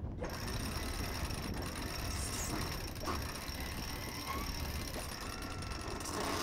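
Sailboat winches turning as the halyard and topping lift are tailed by hand to hoist a crew member up the mast, with a few faint, irregular pawl clicks over a steady low rumble of wind on the microphone.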